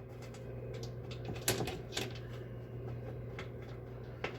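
A few sharp clicks and light taps of bolts and an underbody panel being handled and fitted under a pickup truck, over a steady low hum.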